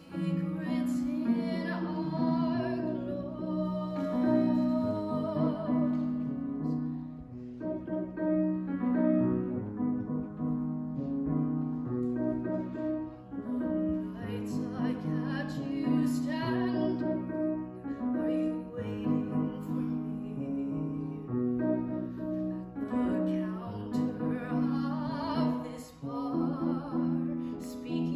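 A woman singing a musical-theatre song with vibrato, accompanied by a grand piano playing sustained chords.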